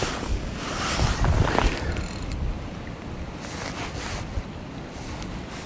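Wind buffeting the microphone: an irregular rushing and low rumble, strongest about a second in.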